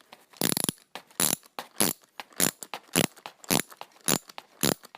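A 12 mm wrench tightening a lug nut onto a screw. It makes a short metallic clink about every half second, eight in all, evenly spaced.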